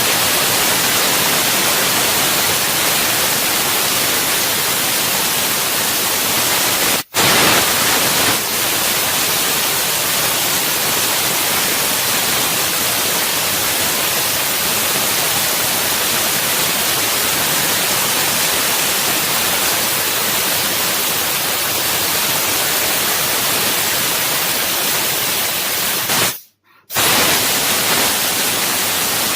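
A 2000 W fiber laser cutting machine at work, its cutting-head assist-gas jet giving a loud, steady hiss. The hiss breaks off for an instant about seven seconds in and again for about half a second near the end.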